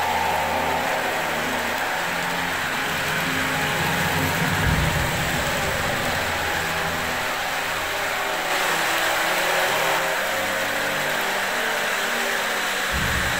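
O gauge model trains running on three-rail track: a steady rumble of metal wheels rolling on the rails, with the low running sound of a diesel locomotive's built-in engine sound effects.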